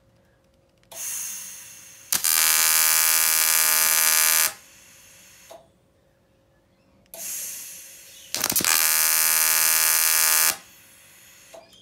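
TIG welding arc on aluminium buzzing loudly, struck twice for about two seconds each. It is welding up a corrosion pinhole in an aluminium boat hull overhead. A hiss comes just before each strike, and a fainter one follows as each stops.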